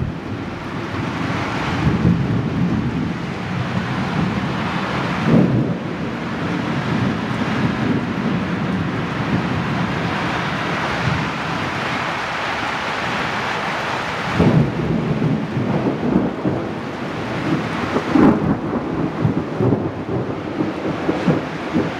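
Thunderstorm: steady heavy rain, with several low rumbles of thunder rising out of it, the strongest about five seconds in, again about fourteen seconds in, and a run of them near the end.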